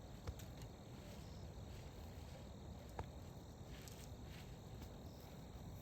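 Faint outdoor background noise, a low even hiss, with two soft clicks, one just after the start and one about three seconds in.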